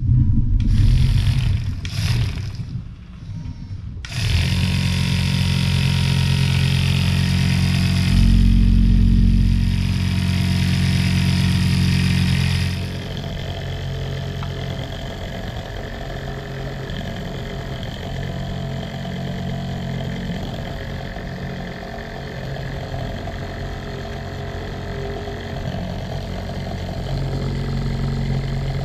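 Small motors and gearing of a homemade RC model tractor whining as its PTO spins a rotavator. It starts in short bursts for the first few seconds, then runs steady and loud for about nine seconds, and then carries on more quietly.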